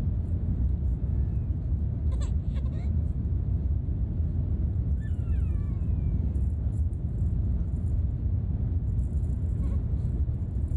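Steady low rumble inside a jet airliner's cabin as it climbs out after takeoff: engine and airflow noise.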